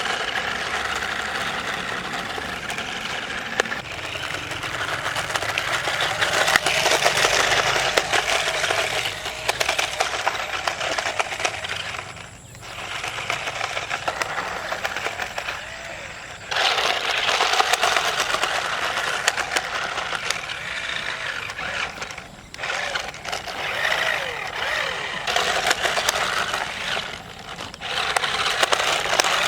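Small RC stunt car running in stretches: its electric drive motors whir and its plastic body and hollow tyres clatter over the ground. The sound dips briefly a few times as the car stops and starts again.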